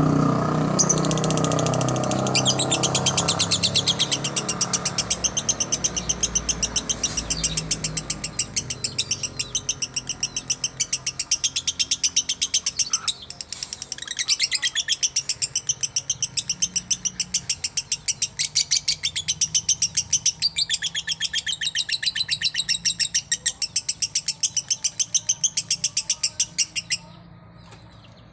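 A lovebird's long chattering trill ("ngekek"): a fast, unbroken run of sharp high chirps, several a second, with a brief dip about halfway that then resumes and cuts off suddenly near the end.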